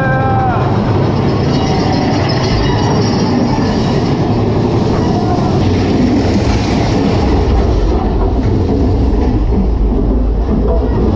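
Big Thunder Mountain Railroad mine-train roller coaster running through a dark tunnel: a steady loud rumble and clatter of the train's wheels on the track. A short high tone sounds at the very start.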